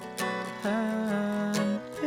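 An acoustic guitar being strummed, with a voice holding one wordless wavering note from just under a second in.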